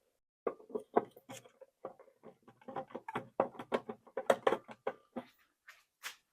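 Irregular small clicks, taps and light scraping of hands fitting small parts back into the lathe's housing.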